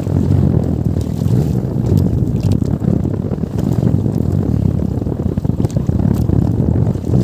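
Wind buffeting the microphone on open water, a steady, uneven low rumble, with a few faint light ticks.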